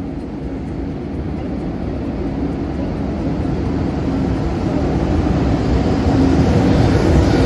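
Train approaching: a rumble with a steady hum that grows steadily louder.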